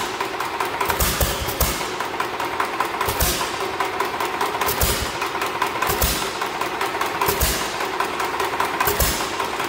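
Antique hit-and-miss gas engine running, firing in low thumps at uneven gaps of about half a second to a second over a fast, steady mechanical clatter. It is running a little fast and not yet firing consistently, so the governor still needs adjusting.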